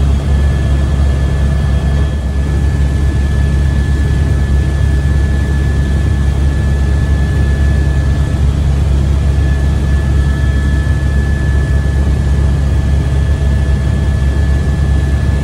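Helicopter's rotor and turbine noise heard from inside the cabin: a loud, steady low drone with a thin, constant high whine over it.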